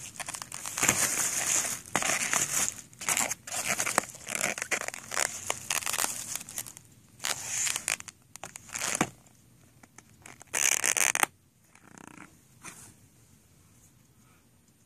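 Plastic takeout bag crinkling and rustling in irregular bursts as it is handled around a styrofoam food box, with a last loud rustle a little before halfway, after which it is mostly quiet.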